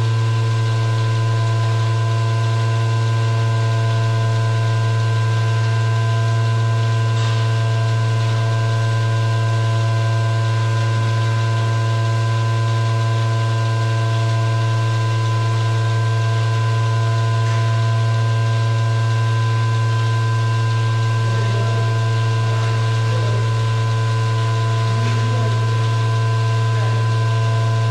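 A machine running with a loud, steady low hum, several fixed tones above it and a hiss, unchanging throughout.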